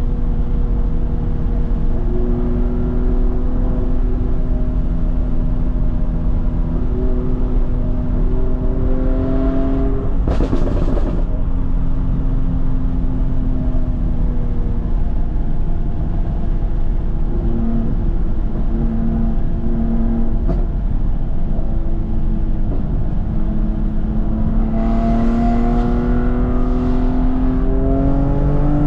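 2015 BMW F80 M3's twin-turbo inline-six running through a straight-piped exhaust (M Performance exhaust with secondary cat delete), its revs holding, dipping and rising as it is driven through the bends. A short rush of noise comes about ten seconds in, and near the end there are a few more bursts while the revs climb.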